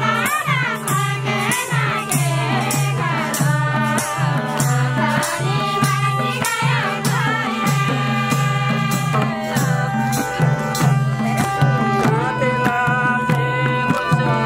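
A group of women singing a Nepali folk song together, with a madal hand drum and hand clapping keeping a steady beat over a steady low drone.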